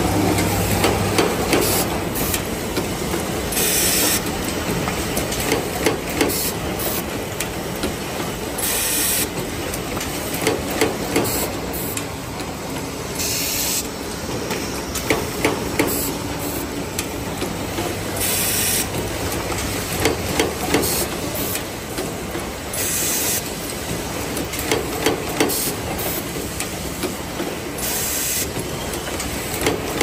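YH009A-3 fully automatic plug insert crimping machine running, with constant mechanical clatter and sharp clicks and knocks. A short burst of air hiss from its pneumatic cylinders comes about every five seconds, once per working cycle.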